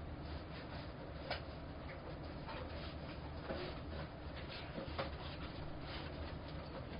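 Faint handling noise of a diffuser being worked onto a ring light: a few light clicks and rustles over a steady low hum.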